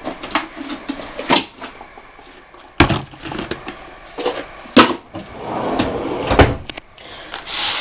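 Kitchen handling noises as a plastic mixing bowl is fetched from a cupboard and set down on the counter: four sharp knocks spread over the stretch, with rustling between them and a brief hiss near the end.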